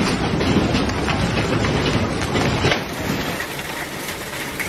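Heavy hail and rain falling, with wind buffeting the microphone as a low rumble. About three seconds in the sound changes to a lighter, steadier hiss of rain and hail with a few sharp ticks.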